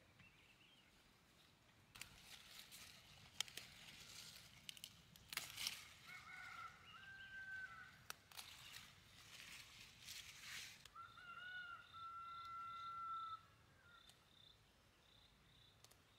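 A rooster crowing faintly twice, each crow held about two seconds, about six and eleven seconds in, over a stretch of irregular rustling and knocking. After the second crow, short high chirps repeat a few times a second.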